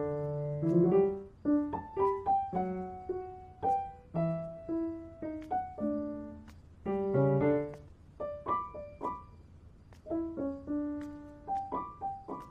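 Background piano music: a melody of separate struck notes and small chords, each note fading after it is played.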